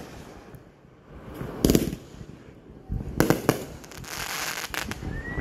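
Aerial fireworks going off: one sharp bang a little over a second and a half in, then a quick cluster of bangs about three seconds in, followed by crackling and a few more cracks near the end.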